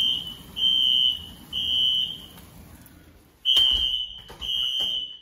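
Building fire alarm sounding: a high-pitched beep in groups of three, about half a second on and half a second off, then a pause and three more beeps. This is the temporal-three pattern that signals evacuation; here it was triggered by a faulty pull station. A few faint knocks come with the second group.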